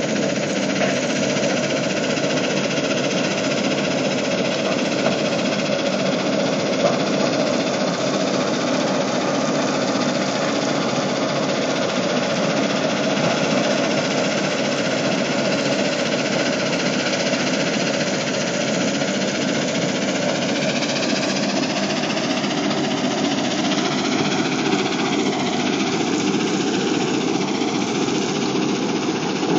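Mobile crushing plant running steadily: diesel engine noise mixed with the rattle and clatter of concrete rubble being crushed, and crushed gravel pouring off a conveyor onto a stockpile. A shifting engine tone rises and falls near the end.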